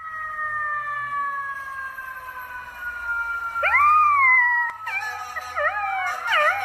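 A golden retriever puppy howling: one loud howl that rises and then falls about halfway through, then a run of short wavering howls. Under it, a long steady tone slowly falls in pitch.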